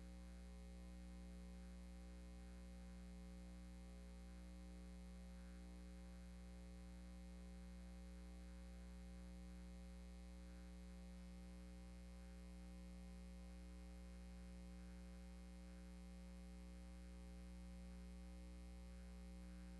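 Near silence with a steady electrical mains hum; no sound of the stones being placed is heard.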